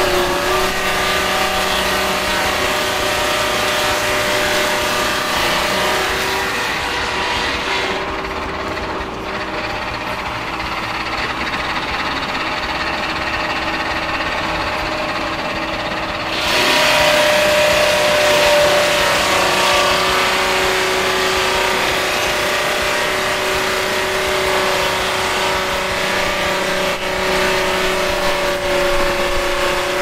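Electric swingblade sawmill's circular blade running and cutting through a gum log: a steady motor-and-blade whine over a rough sawing hiss. In the middle the high hiss drops away for several seconds, then comes back louder.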